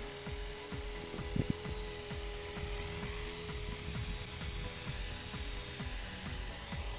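Blade 450 3D electric RC helicopter in flight: a steady high whine from its brushless motor and spinning rotor, with a brief knock about one and a half seconds in.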